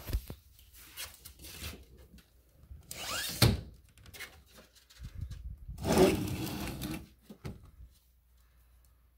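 Scraping and rubbing handling noises: two longer scrapes, about three and about six seconds in, with scattered clicks and knocks between them.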